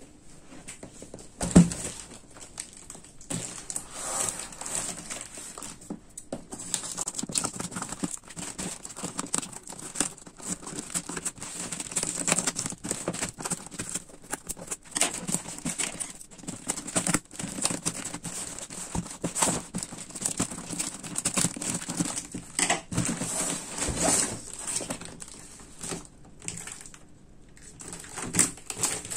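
Packing tape being cut with scissors and torn off a cardboard shipping box, with cardboard and tape crinkling and rustling and many small knocks as the box is opened and the inner boxes are lifted out. A single hard thump about a second and a half in.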